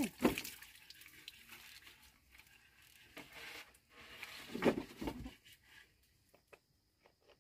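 Wooden cutting board being handled on a rack of wooden poles: irregular light knocks, scrapes and rustles, with a louder knock a little under five seconds in.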